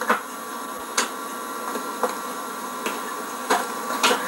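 Steady background hiss with a handful of short, sharp clicks, roughly one a second.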